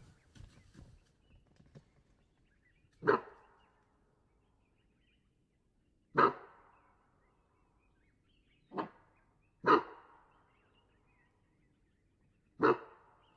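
Cape bushbuck giving alarm barks: five short, sharp, dog-like barks spaced one to three seconds apart, each trailing off in an echo. Bushbuck mostly give these barks in response to a nearby threat such as a predator.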